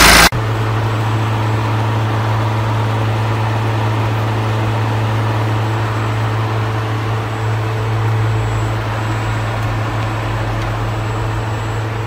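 BMW E90's electric radiator cooling fan running steadily with a low even hum while the engine is switched off, the fan-always-running fault. A brief loud rush of noise cuts off abruptly just after the start.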